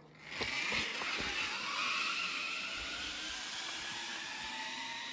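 Zip-line trolley pulleys running along a steel cable: a steady whirring hiss that starts about half a second in, with a tone that rises partway through.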